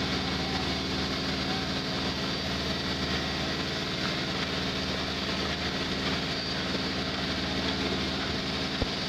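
Steam locomotive standing at rest, steam hissing steadily around its cylinders over a low, even hum, with a single short click near the end.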